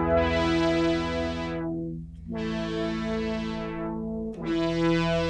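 Guitar played through a Boss SY-200 synthesizer pedal on pad variation 3, giving a sustained synth-pad chord. The sound brightens and darkens in sweeps, and new notes are struck about two seconds in and again near the end.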